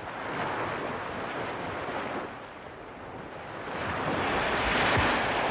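Sea waves washing in, in two swells of surf, the second building louder from about four seconds in.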